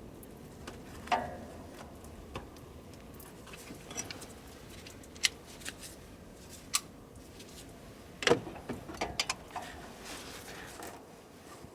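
Scattered sharp clicks and knocks of oil filter pliers gripping and working at a car's spin-on oil filter, with a quick cluster of several knocks about eight seconds in.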